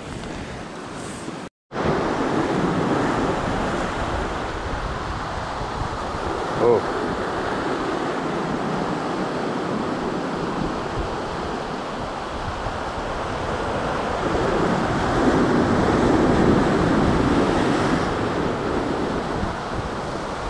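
Ocean surf washing over and around shoreline rocks, with wind buffeting the microphone; the wash swells louder about fifteen seconds in. One short sharp sound stands out about a third of the way through.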